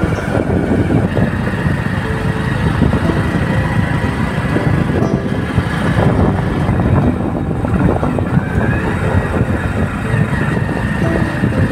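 A motor vehicle driving along a road, with steady engine and road noise.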